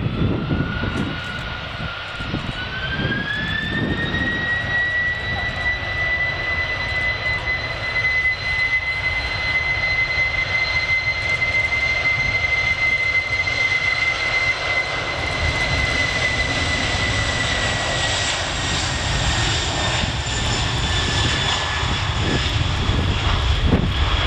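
Boeing 747-400F's four turbofan engines spooling up to takeoff thrust: a whine rises in pitch over the first few seconds, then holds steady over a deep rumble through the takeoff roll. Near the end the whine drops slightly in pitch as the jet passes, with the nose lifting for rotation.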